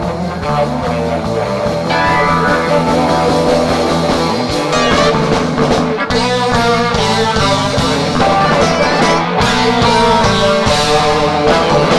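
Live rock band playing an instrumental passage in a psychedelic rock style, led by electric guitar, with no singing.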